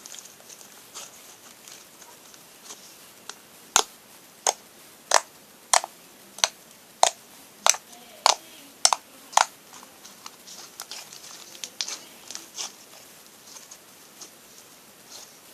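Homemade glue slime being squeezed and worked by hand, making sharp clicking pops. About ten loud clicks come roughly every half second through the middle, with softer crackling clicks before and after.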